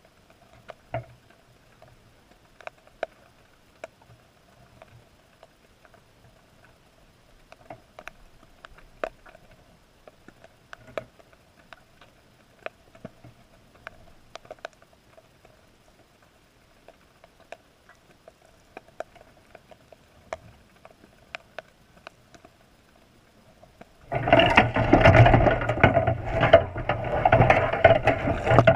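Underwater sound inside a crab trap: faint scattered clicks over a low steady hum, then about 24 seconds in a sudden loud rushing, knocking din as a sea lion yanks at the salmon-head bait and jostles the trap.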